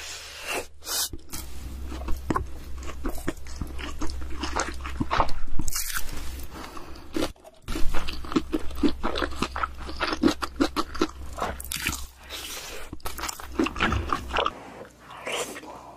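Close-miked eating: a person biting into and chewing crunchy food, a quick irregular run of crunches and wet crackles, over a low hum that stops near the end.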